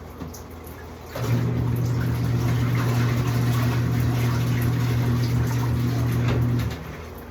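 Portable twin-tub washing machine's wash motor starting about a second in, humming steadily for about five seconds, then stopping, over sloshing water. The agitator is churning the clothes in a rinse cycle.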